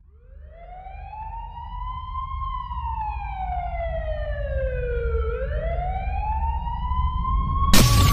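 Slow wailing siren opening a rap song, fading in. It rises, falls and rises again in pitch over a low rumble, and a sudden loud burst of noise hits near the end.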